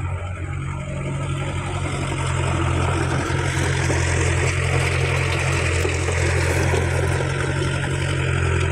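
Caterpillar E70B excavator's diesel engine running steadily, a constant low drone, with a broad hissing rush that swells about the middle.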